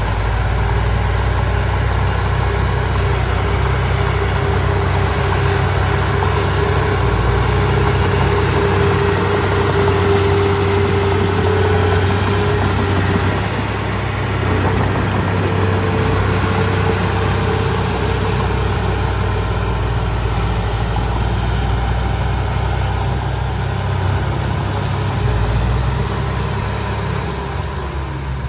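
Diesel engine of heavy earthmoving equipment running steadily, a low hum with a whine over it that holds for several seconds, breaks off about halfway through and comes back slightly higher in pitch.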